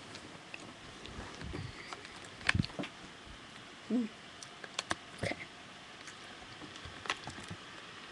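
A laptop with a built-in webcam being handled and turned around: scattered clicks and knocks of hands on the casing and keys, the loudest about two and a half seconds in.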